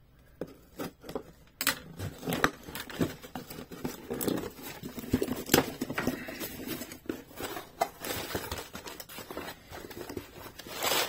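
Scissors slitting packing tape on a cardboard box, then the box being opened and crumpled packing paper rustling: a busy string of irregular clicks, snips and crackles.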